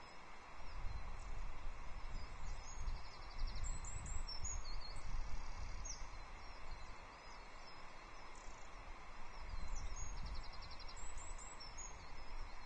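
Wind buffeting the nest camera's microphone in gusts, strongest in the first few seconds and again near the end. Small songbirds give short high chirps and trills in the background.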